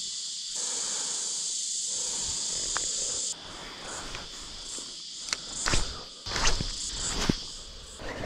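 Steady high drone of insects in the bush, which drops away suddenly about three seconds in. After it comes a fainter drone with a few sharp knocks and low bumps from handling the rod and spinning reel.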